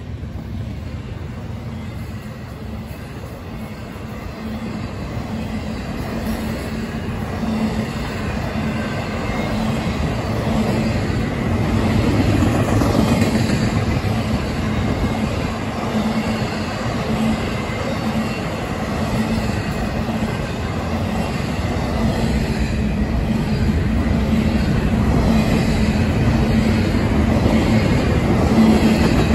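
Double-stack intermodal well cars rolling past on steel wheels, a continuous rumble of wheels on rail with a steady low hum underneath. It grows louder over the first dozen seconds and then stays level.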